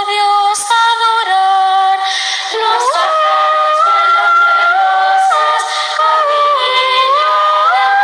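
Girls' choir singing a Christmas carol (villancico) a cappella in several parts, holding long notes that move together in steps, with a rise in pitch about three seconds in.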